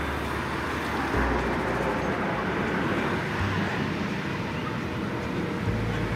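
A steady rushing roar, likely from the jet engines of the smoke-trailing aerobatic formation, under background music whose deep bass notes hold and change pitch every couple of seconds.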